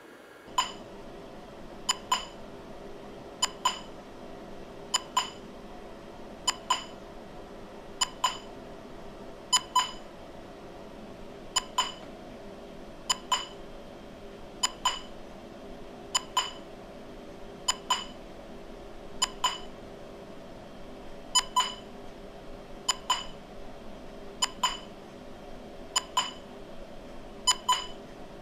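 Smartphone sync-test app beeping, a short pip about every second and a half over a steady low hum. Many pips sound doubled, two in quick succession, which fits the same beep arriving once over the wireless video link's embedded audio and once direct from the mic, the second late by the link's delay.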